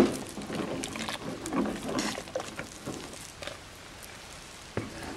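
Metal ladle stirring a thick milk-and-gelatin mixture in a metal pot: soft, irregular scraping and sloshing, with a light knock of the ladle at the start and another near the end.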